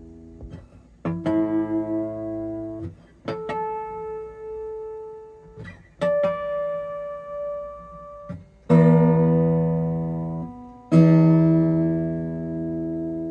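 Martin D-R rosewood dreadnought acoustic guitar, freshly restrung and set up, sounded as it is tuned: three single strings plucked one at a time, each ringing about two seconds at a higher pitch than the last, then two loud strummed chords about two seconds apart.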